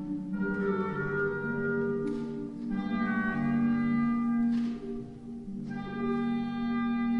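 Clarinets and other woodwinds playing slow, held chords together, the harmony shifting to a new chord about every two to three seconds.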